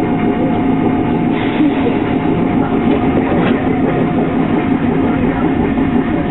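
Eizan Electric Railway train running along the track, heard from inside the front of the car: a steady running rumble with a thin steady whine and a couple of light clicks from the rails.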